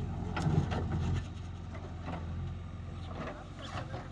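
Diesel engine of a JCB 3DX backhoe loader running with a steady low drone, which drops noticeably in level a little over a second in.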